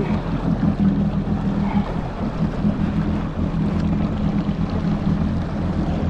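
Yamaha GP1800R SVHO jet ski's supercharged four-stroke four-cylinder engine running steadily at low speed while it warms up.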